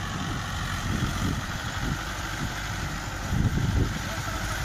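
Diesel engines of two Mahindra 575 DI tractors, four-cylinder, running at low speed as the tractors pull slowly side by side with rotavators mounted. A steady low throb swells louder for a moment about three and a half seconds in.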